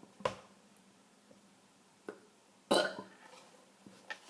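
A person burping after gulping down a cup of drink: a sharp short burp just after the start and a longer, louder one a little under three seconds in, with a small sound between.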